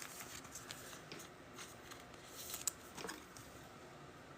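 Faint rustling and a few light clicks of trading cards being handled and slid against one another.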